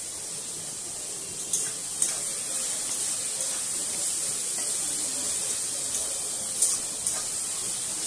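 Sliced carrot, onion and capsicum sizzling in oil in a metal kadai as they are stir-fried, a steady high hiss. A spatula clicks against the pan four times, twice around the second mark and twice about two-thirds of the way in, the third click the loudest.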